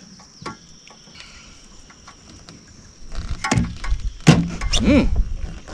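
Faint handling clicks, then from about three seconds in a run of knocks and thumps against a metal jon boat's hull as the anglers move and fish, with a brief low tone near the end.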